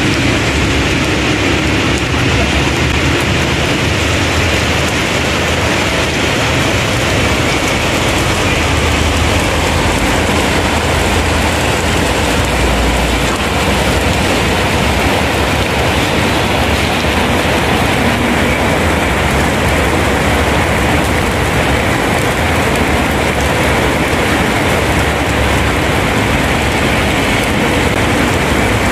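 Heavy rain pouring onto wet pavement, a loud steady hiss. Underneath it is a low rumble of traffic that swells for a few seconds about ten seconds in.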